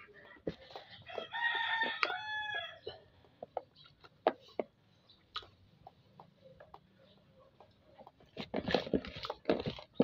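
A rooster crows once, about a second in, a pitched call lasting about a second and a half that falls away at its tail. Around it are clicks and rustles of hands working chopped tomato, onion and garlic into a milkfish in a plastic tub, growing busier near the end.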